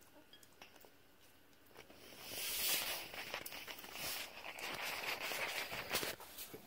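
Kitten eating soft food from a china saucer, with faint small clicks of chewing and lapping. About two seconds in, a much louder rustling starts, full of scattered clicks and knocks, and runs on.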